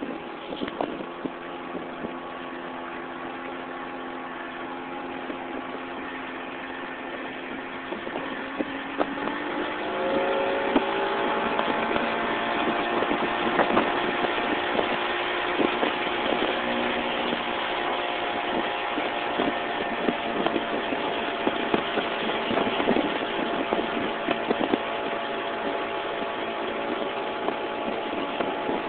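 Small open boat's outboard motor running steadily, then throttled up about a third of the way in, its note rising in pitch and growing louder, over a hiss of water and wind.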